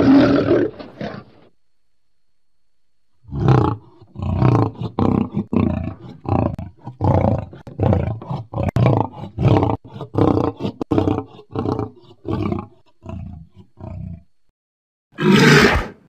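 Movie-style dinosaur sound effects voicing a Neovenator. A roar of about a second and a half opens, followed after a short gap by a long run of short, choppy growling calls at about two a second. Another roar comes near the end.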